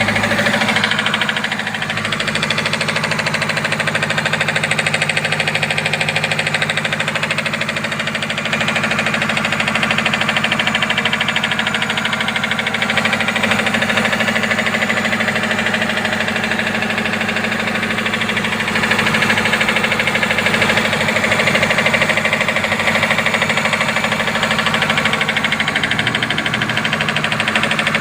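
Subaru Forester's flat-four boxer engine running, with a rapid, steady knocking from inside the engine.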